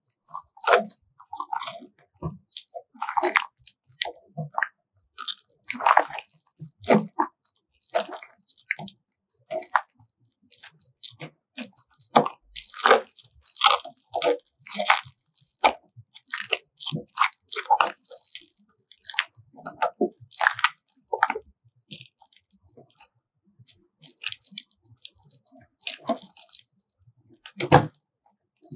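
Handling noise from fitting aluminium foil exhaust ducting and its metal collar: irregular crinkles, clicks and knocks as the duct is worked into place.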